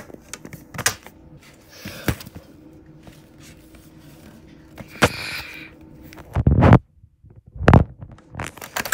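Plastic fashion dolls being handled and moved on a wooden tabletop: scattered light taps and clicks, a brief rustle about five seconds in, and two heavy thumps near the end.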